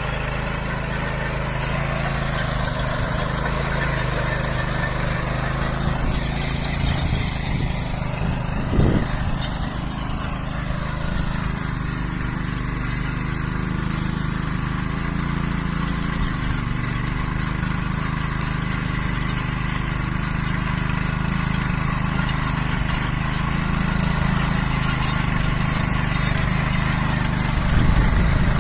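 Small engine of a cultivator running steadily, with a brief knock about nine seconds in and getting louder near the end.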